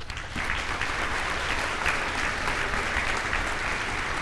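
Audience in a school assembly applauding, a steady dense clapping from many hands that starts at once as a speaker finishes.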